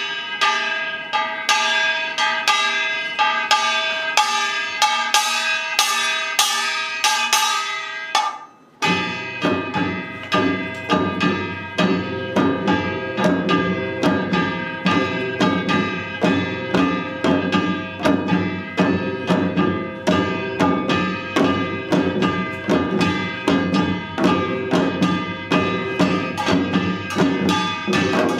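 Samul nori percussion playing an Utdari rhythm: for about the first eight seconds ringing kkwaenggwari small gongs lead with little drum underneath, then after a brief break the janggu hourglass drums and buk barrel drums come in together with a fast, steady driving beat under the gongs.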